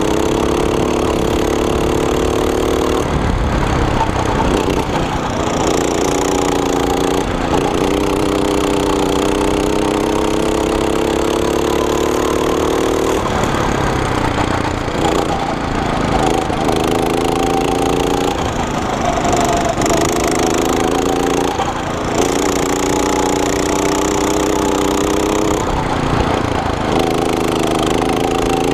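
Go-kart's small single-cylinder engine under load, close up, its pitch climbing slowly on each straight and dropping back when the throttle eases for the corners, several times over, with rough wind and rattle noise throughout.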